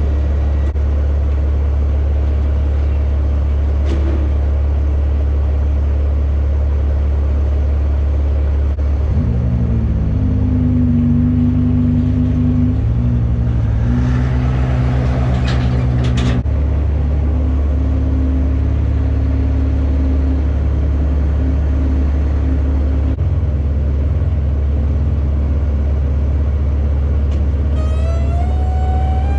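Peterbilt 389's Cat C15 inline-six diesel running on the road under a deep, steady rumble. About nine seconds in, a pitched engine note comes up and changes pitch for several seconds before fading back. Near the end there is a rising whine.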